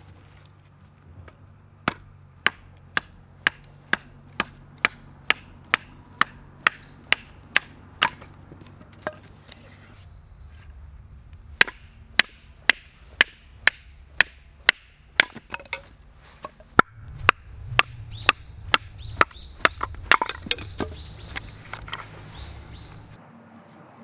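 Sharp wooden knocks, about two a second, as a knife set across the top of an upright stick of wood is driven down into it to split the stick for kindling. The knocks come in two steady runs with a short pause between them, and the second run grows rougher near its end.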